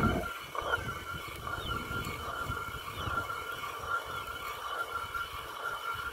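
Hand-turned stone quern grinding grain: the upper millstone rubbing round on the lower stone with a low, uneven rumble. A steady high drone runs behind it.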